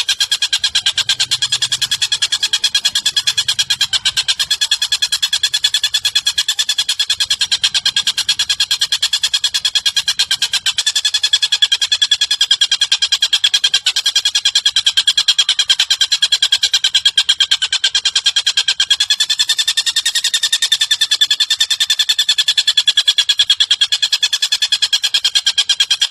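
A bird-song recording: a very fast, even, buzzing trill held at one high pitch without a break. It is a call track played to train pet lovebirds.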